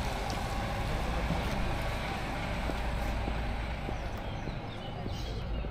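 Road ambience: a white coach's engine running steadily as it drives away up the road, with low wind rumble on the microphone.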